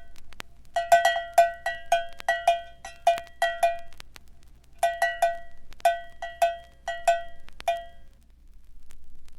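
A cowbell clanging, struck about three times a second with a bright metallic ring. It plays in two runs separated by a short pause about four seconds in, and stops about eight seconds in.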